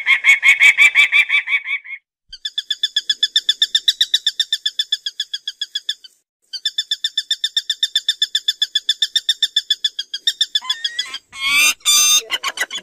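Peregrine (shaheen) falcon calling: runs of rapid, evenly repeated high notes a few seconds long, with short breaks between them. Near the end come a few loud, harsh screams.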